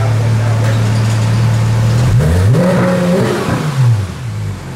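Porsche 991 GT3's naturally aspirated 3.8-litre flat-six idling, then revved once about two seconds in. The pitch rises, holds for about a second and falls back to idle.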